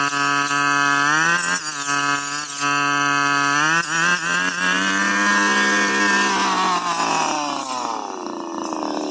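Two-stroke brush cutter engine running at high revs, its pitch swelling up and then sinking, and the sound dropping off about eight seconds in as the throttle eases.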